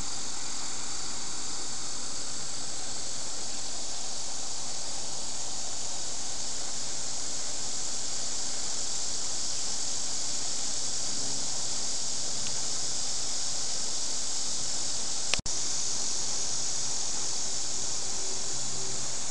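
Steady high hiss, broken by a sharp click and a split-second dropout about fifteen seconds in.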